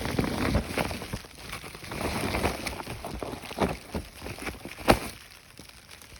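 Footsteps crunching through snow: irregular crackling crunches, with one sharper crack about five seconds in.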